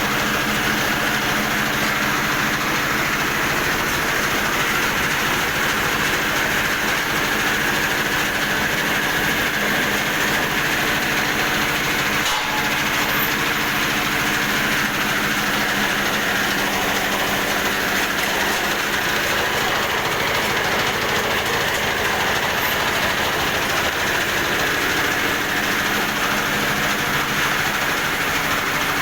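A 2-in-1 rice huller and FFC 23 disc flour mill running, giving a loud, steady mechanical din with a constant low hum under it.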